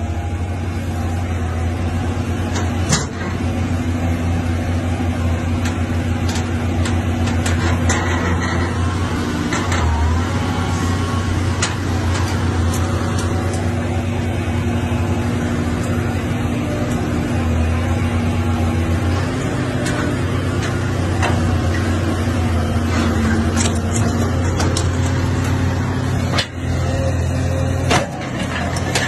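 Diesel engine of a hydraulic excavator running steadily under load as it works its way out of deep mud, with occasional sharp knocks and clanks.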